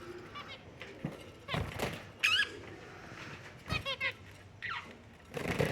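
Finches calling: several short, squeaky chirps, some in quick runs of rapidly bending notes, with a few soft knocks among them.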